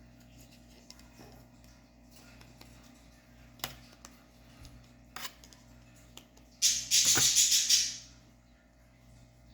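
Butter knife prying at the seam of a plastic key fob shell: two sharp clicks, then about a second and a half of loud rattling scraping of metal on plastic as the shell is worked apart.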